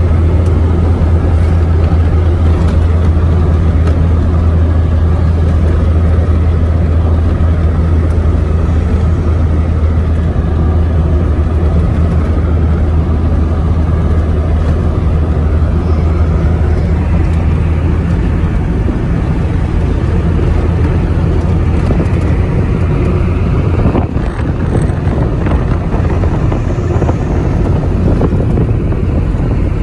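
Steady engine drone and road noise inside the cabin of a Suzuki car running on a Honda 125 motorcycle carburetor while driving at road speed. The low drone eases after about 17 seconds as a higher tyre-and-wind hiss rises, with a single brief bump about 24 seconds in.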